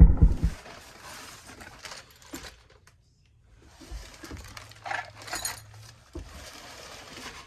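A low engine-like rumble cuts off about half a second in. Then come quiet handling sounds: rustling and light metallic clinks of small chainsaw parts being handled.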